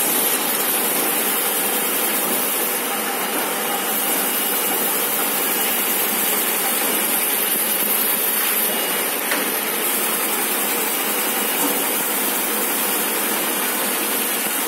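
QH850 small-box crash-lock-bottom folder gluer running: a steady, even mechanical running noise with a strong hiss.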